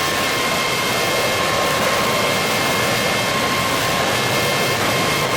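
Harsh noise music: a steady, dense roar filling the whole range, with several held high tones running through it.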